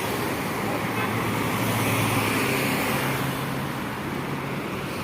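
A bus passing close by on the road. Its engine hum and tyre noise swell to their loudest about two seconds in, then fade away.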